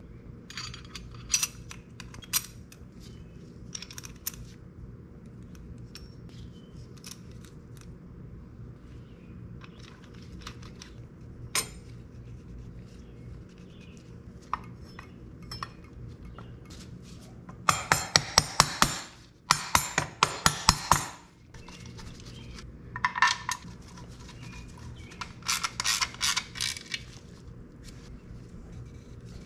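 Metal tools and clutch parts clinking and clicking during hand work on a motorcycle clutch. There are scattered single clinks, then two quick runs of rapid, loud clicks about two-thirds of the way through, followed by a few more clusters of clinks.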